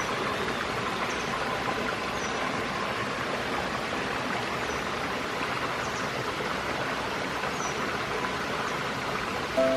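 Mountain valley stream flowing over rocks: a steady, even rush of water.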